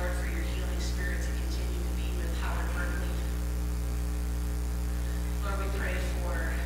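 Steady electrical mains hum, a low continuous drone that is the loudest sound throughout. A voice speaks faintly now and then: near the start, around the middle and again near the end.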